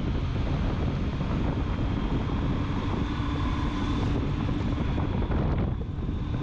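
Yamaha FJR1300 motorcycle's inline-four engine running at road speed, with wind rushing over the microphone. The sound dips briefly about a second before the end.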